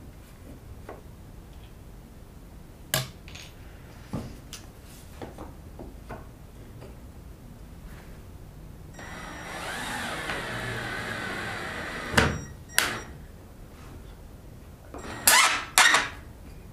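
Woodworking handling sounds: wooden pieces and tools knocking lightly, a small power tool whirring for about three seconds partway through, then a few sharp knocks, the loudest a quick pair near the end.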